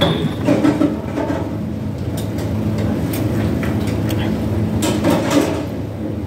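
Steady low hum of restaurant room noise, with a few short clicks and clatters scattered through it.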